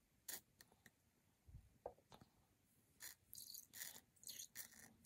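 Near silence with a few faint clicks and rustles of hands handling a small plastic doll and its toy bottle.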